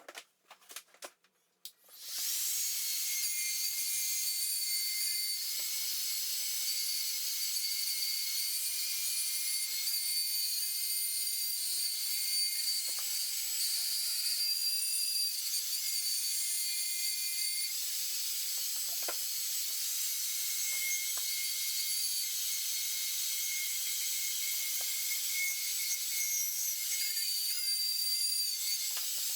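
A few light clicks, then about two seconds in a steady high hiss with thin whistling tones starts and runs on unbroken.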